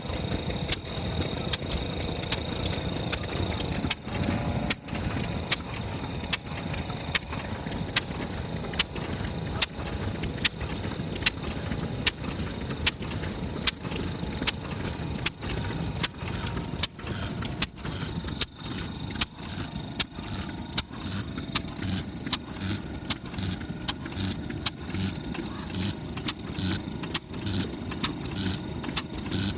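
Large Kubota FF-type 10 hp stationary engine running slowly and evenly, with regular sharp firing beats about once a second over a low mechanical rumble. The steady low-speed running follows a spark plug change that cured its misfiring.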